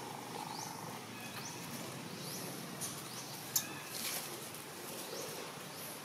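Outdoor ambience with a bird repeating a short rising note about once a second. A single sharp click comes about three and a half seconds in.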